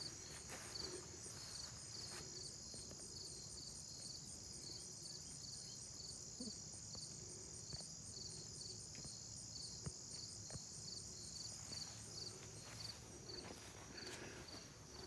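A steady chorus of insects: a high trill with a regular pulsing chirp repeating over it, and a few faint ticks.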